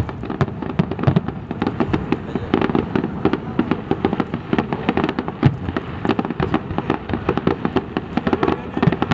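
Aerial fireworks display: a dense, continuous barrage of bangs and crackling bursts, several a second, with no let-up.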